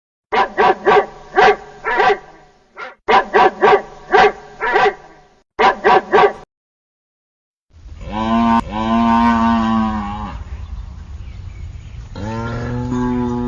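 A duck quacking in three quick runs of calls. After a short pause come two long, low, drawn-out animal calls.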